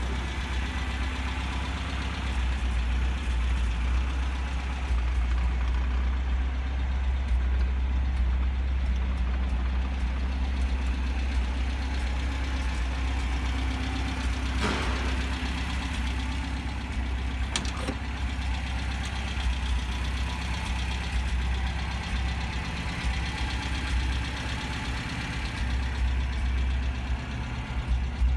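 1978 MGB's 1.8-litre B-series four-cylinder engine idling steadily at about 1000 rpm, with two short clicks about halfway through.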